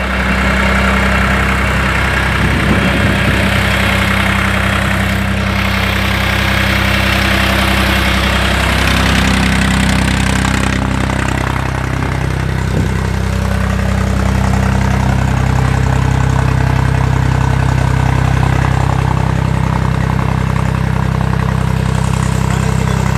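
Force OX25 tractor's diesel engine running steadily, driving a 20 kW PTO alternator that powers the farm's electric water pump.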